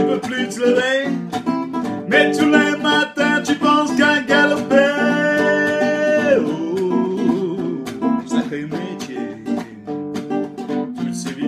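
A man singing to his own strummed acoustic guitar; the voice ends on a long held note about six seconds in, and the guitar strumming carries on alone.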